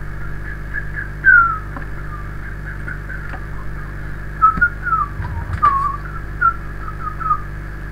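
Short whistled chirps and falling glides come and go throughout, the loudest about a second in and around the middle, over a steady electrical hum. A few sharp keyboard and mouse clicks.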